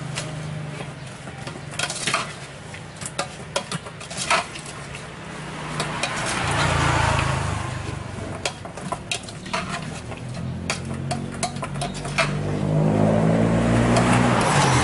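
Repeated clinks and taps of a utensil against a bowl as the salad is stirred and mixed. A motor vehicle passes about halfway through, and another engine grows louder near the end.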